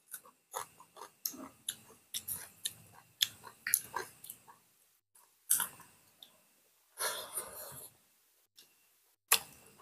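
Chewing and lip-smacking of boiled pork, close to the microphone: a quick run of wet mouth clicks in the first few seconds, then a few separate smacks and a short rustle after a pause.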